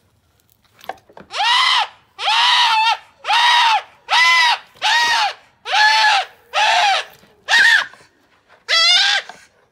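Nubian buckling screaming in distress during disbudding, as its burned horn bud is popped off with a hot disbudding iron: a string of about nine loud bleats, each rising then falling in pitch, about one a second, starting a second in.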